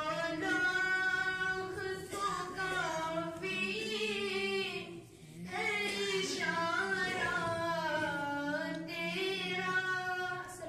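A boy's voice singing a naat, a devotional Urdu poem, unaccompanied into a microphone, in long held melodic phrases with a short breath pause about halfway through.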